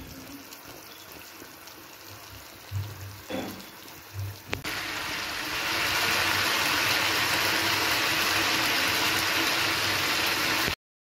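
Chicken pieces frying in oil in a nonstick pot: a faint sizzle with a few low bumps, then, after a sharp click about four and a half seconds in, a much louder steady sizzle that cuts off abruptly near the end.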